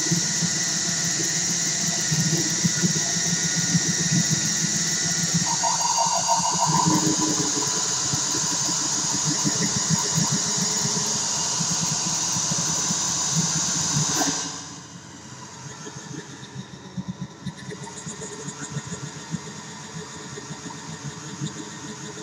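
Homemade four-oscillator noise drone synth built on a 40106 chip, playing a dense buzzing drone of several stacked tones. A higher tone joins about five seconds in. About two-thirds of the way through, the sound suddenly drops to a quieter, thinner, flickering drone.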